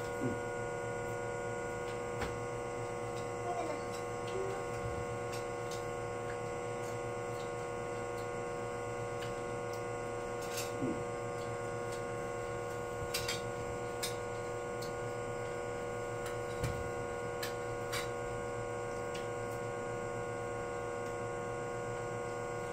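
A steady electrical hum made of several even, unchanging tones, with a few faint short clicks scattered through it.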